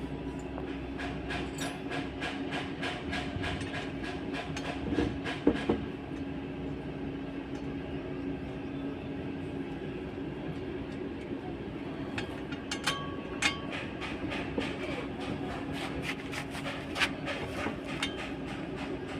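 Steady mechanical hum with continual rapid clattering and ticking, and a few louder sharp knocks about five and thirteen seconds in.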